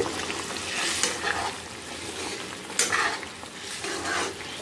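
A ladle stirring a bubbling tamarind-tomato egg curry in a kadai, scraping the pan in a few strokes, the strongest about three seconds in, over the steady bubbling of the gravy.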